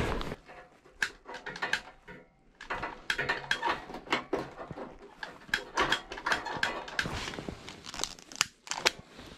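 Irregular clicks, knocks and rustling of clothing and fishing gear being handled close by, with a few sharper clicks near the end.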